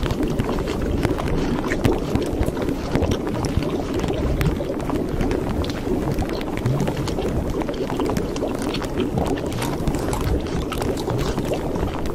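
A steady low rumbling noise with frequent short crackles and clicks scattered through it.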